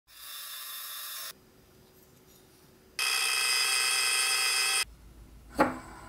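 Metal lathe cutting an aluminium billet: the tool gives a steady high-pitched whine in two stretches, the second longer and louder. Near the end comes a single sharp knock that rings briefly.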